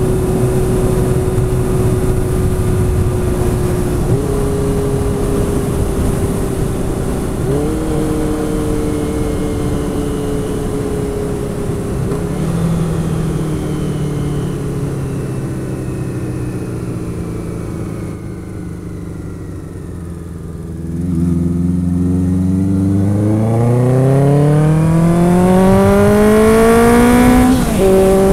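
Honda Nighthawk 750's air-cooled inline-four through an aftermarket 4-into-1 exhaust, heard from the rider's seat. The engine note jumps up and sags three times as the bike slows through downshifts, runs quieter for a few seconds, then rises in one long hard pull with an upshift near the end.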